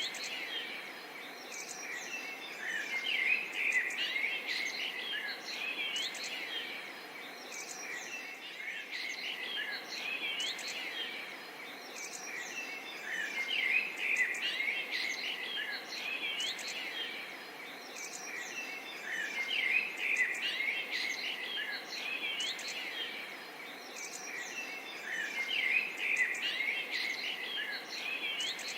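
Forest bird chorus: many birds chirping and calling over one another above a steady background hiss, the chorus swelling and easing every few seconds.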